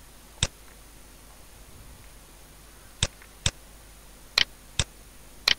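Six sharp computer mouse button clicks. One comes about half a second in, then five follow at uneven intervals over the last two and a half seconds.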